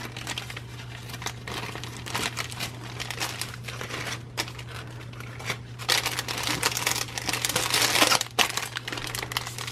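Clear plastic bags crinkling and rustling as they are handled, busiest a few seconds before the end. A steady low electrical hum runs underneath.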